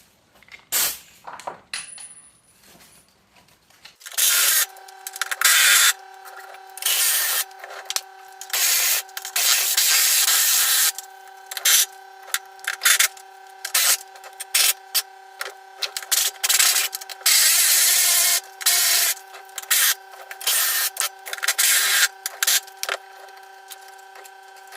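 Bolts being run into freshly tapped holes with a tool: a few light clicks at first, then from about four seconds in a steady hum with many short, loud, noisy bursts over it.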